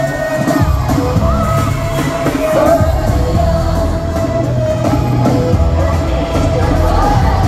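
A K-pop girl group performing live in an arena: a pop track with a steady heavy beat and women singing, heard from the stands with the hall's echo.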